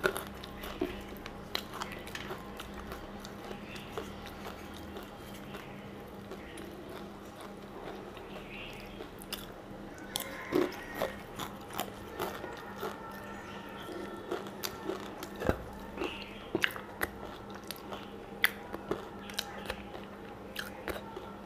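Close-miked chewing of rice and fish eaten by hand: irregular wet mouth clicks and smacks, with fingers working food on a steel plate.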